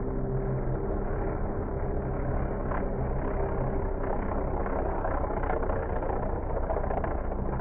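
Piston aircraft engines of a P-51 Mustang and an F4U Corsair, a Packard Merlin V-12 and a Pratt & Whitney R-2800 radial, droning steadily as the pair fly past in formation.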